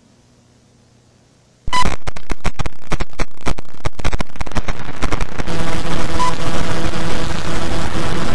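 Near silence, then a sudden loud burst of harsh distorted static about two seconds in. It crackles for a few seconds, then thickens into a dense buzzing noise with a steady hum under it. A short high beep sounds twice, once at the burst and once about six seconds in.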